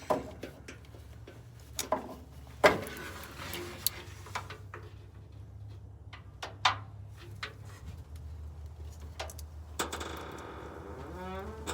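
Scattered clicks and knocks of a park-light bulb socket and plastic lamp housing being worked out by hand, over a steady low hum. Near the end a drawn-out tone falls in pitch.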